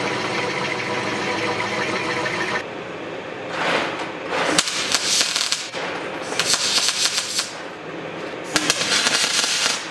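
A drill press with a hole saw running steadily for the first couple of seconds. Then a MIG welder tacks a steel bracket in about four crackling bursts of roughly a second each.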